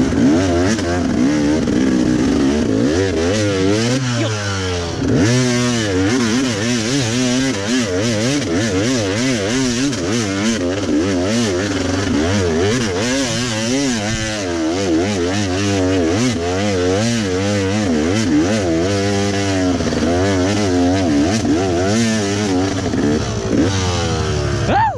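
Enduro dirt bike engine running under constantly changing throttle, its pitch wavering up and down about every half second with a few longer rises. It cuts off suddenly at the end.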